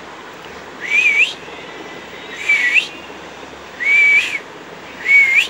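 A person whistling four short notes about a second and a half apart. Each note lasts about half a second, wavers a little and flicks upward at the end.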